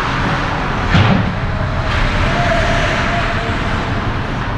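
On-ice hockey play picked up close to the net: a steady low rumble with skate scrapes, and one sharp thump about a second in.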